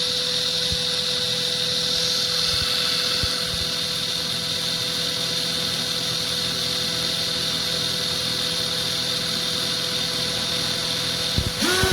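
Black+Decker 18V brushless drill running steadily at constant speed, a continuous motor whine with a fixed pitch; right at the end the pitch shifts as the speed changes.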